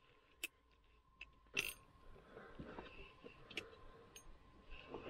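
Faint scattered clicks and rustling from an ice-fishing rod and reel being worked against a hooked fish. The sharpest click comes about one and a half seconds in, over a faint steady high tone.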